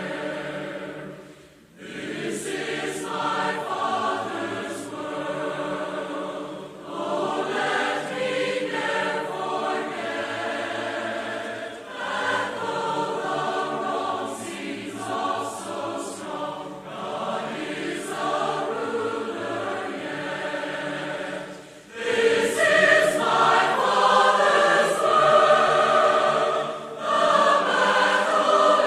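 Background music of a choir singing sustained notes. It dips briefly about a second and a half in and swells louder about 22 seconds in.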